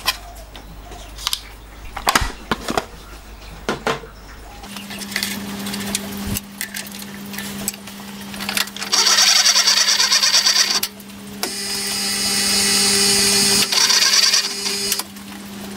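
Clicks and rattles from a plastic drill index as a 2.5 mm drill is taken out; then a milling machine's motor starts about five seconds in with a steady hum. From about nine seconds the 2.5 mm drill cuts into a small steel bracket in three spells, each a loud, high-pitched cutting noise over the motor: drilling tapping holes for M3 threads.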